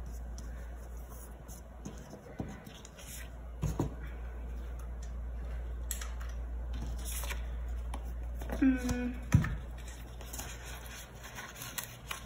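Paper rustling and light scratchy taps as planner pages and sticker sheets are handled and stickers are peeled from their backing. A short hummed voice sound comes about nine seconds in.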